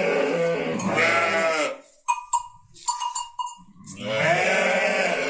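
Sheep bleating: one long bleat for the first couple of seconds and another starting about four seconds in, with a few short faint sounds in between.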